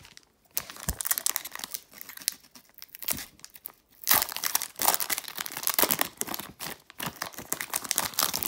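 Pokémon booster pack's foil wrapper crinkling as it is handled and torn open, in two spells of dense crackling, the second and louder one starting about four seconds in.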